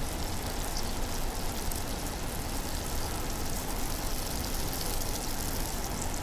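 Steady noisy rumble and sizzle of a pan of ice-flower potstickers cooking in flour-water slurry over a high flame.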